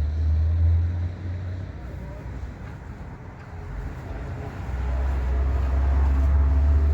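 A loud low rumble that dies down for a few seconds in the middle and then builds back up.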